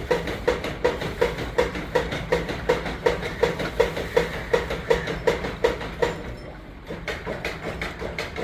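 Milk being hand-milked into a metal pail: a quick, even run of squirts, about three a second, each one ringing in the vessel. It goes quiet for a moment near the end, then starts again more softly.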